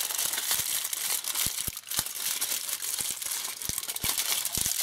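Aluminium foil crinkling and crackling in a steady run of sharp crackles as it is wrapped and pressed by hand around a table-tennis ball.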